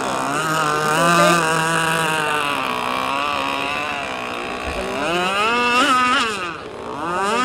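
Radio-controlled racing speedboat's motor running flat out over the water, its pitch wavering, then swooping sharply up and down twice about five to six seconds in.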